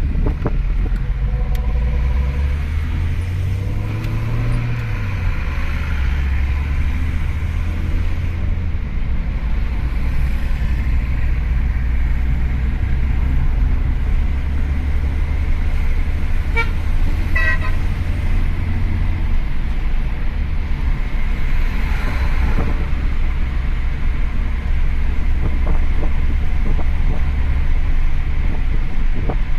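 Steady low rumble of a motor vehicle running, with a short run of pitched, horn-like toots about seventeen seconds in.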